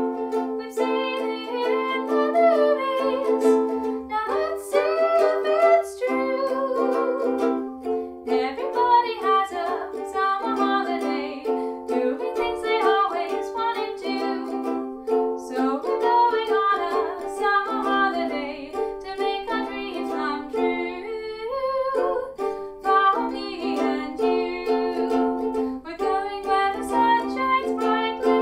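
Music led by a ukulele, with no words sung.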